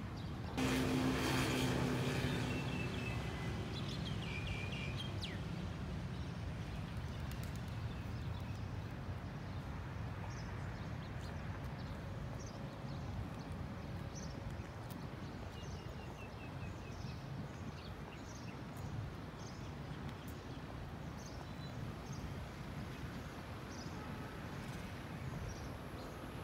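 Outdoor city ambience: a steady low rumble of distant traffic, with small birds chirping in short repeated calls through the second half. About a second in, a louder noise with a low hum passes for a couple of seconds.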